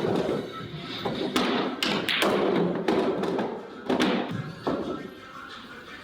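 Billiard balls and cue being struck during a shot: several sharp clicks and thuds, a few spread over a few seconds.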